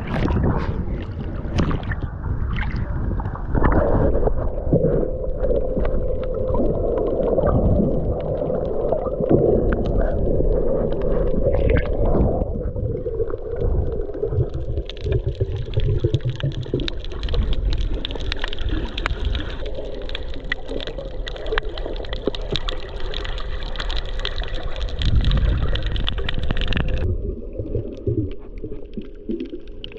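Underwater sound picked up by a camera going under the sea surface: a splash and bubbling as it goes under, then muffled water noise with a steady low hum. About halfway through a hiss joins in and cuts off suddenly near the end.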